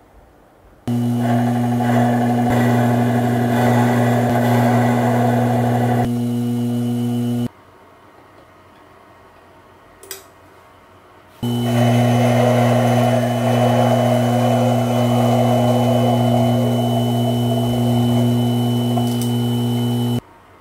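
Mini metal lathe running, its motor and drive giving a steady hum while turning a small metal pin. It starts about a second in and stops after about six seconds, a single click follows, and it runs again for about nine seconds before stopping just before the end.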